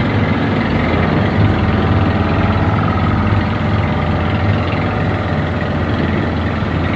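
Fishing boat's engine running steadily with a low, even drone, with the wash of the sea alongside.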